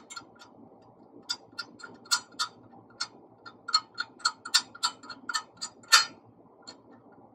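Irregular light metal clicks, a few a second, from a wrench turning a slope mower's track tensioner bolt to back it out; the loudest click comes about six seconds in.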